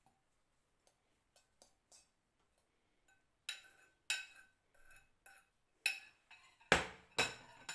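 Metal spoon clinking and scraping against a china bowl as chopped hard-boiled egg is spooned out of it. A few faint clicks at first, then a run of clinks from about three seconds in, with two sharper knocks near the end.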